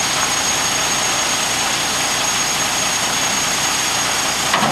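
Crane truck running steadily, its engine and crane hydraulics making an even mechanical noise with a thin high whine on top. A short knock comes near the end.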